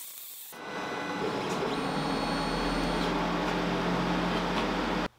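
MIG welder of a home-built metal 3D printer running: a steady hum under a dense, even hiss. It starts about half a second in and cuts off abruptly just before the end.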